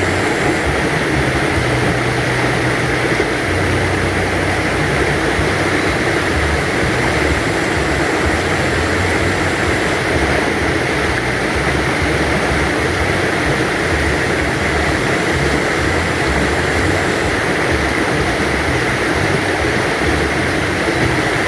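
A river stream flowing steadily over its bed, a constant rushing and babbling of water with an uneven low rumble underneath.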